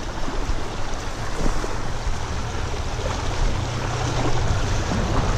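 River current rushing and splashing over a shallow, rocky riffle close by, as a steady wash of noise with a low rumble underneath.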